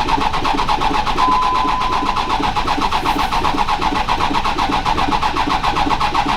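Starter cranking the swapped-in 6.7 Cummins diesel in an even, fast pulsing rhythm without it catching, during a no-start hunt with one injector line plugged off. A brief steady beep sounds about a second in.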